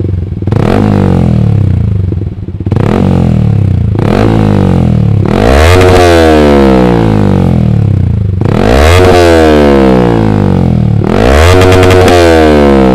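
Motorcycle engine revved through a Ronin Black Katana three-mode aftermarket exhaust set to racing mode, its glass-wool packing freshly replaced. About six throttle blips, each rising sharply in pitch and falling back to a bassy idle.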